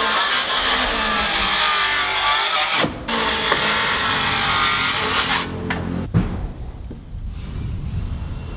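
Handheld power saw cutting into wood framing, with a short break about three seconds in; it stops after about five and a half seconds, and a single knock follows.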